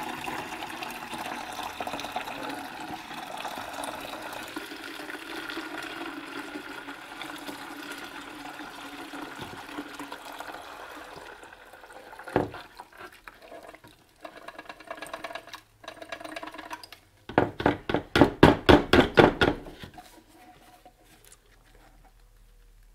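Toilet-bowl-cleaner rust solution pouring from a small engine's fuel tank into a plastic bucket, a steady splashing pour for about eleven seconds. Then a sharp knock, and the stream breaks into uneven spurts and dribbles, with a loud rapid run of about a dozen spurts, some five a second, as the tank empties near the end.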